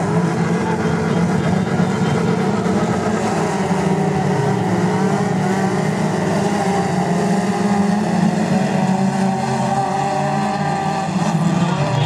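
Several autocross race car engines revving at a standing start and accelerating away together, a rising, overlapping engine note that carries on as the pack races off.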